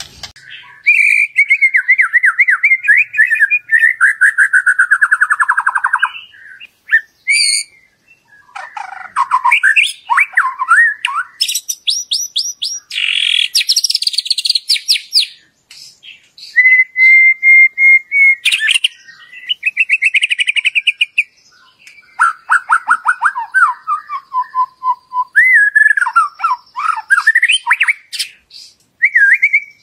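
White-rumped shama (murai batu) song: phrases of rapid trills, chattering notes and whistles, with short pauses between them and one held whistle about halfway through. It is a lure recording played to provoke a captive murai batu into singing.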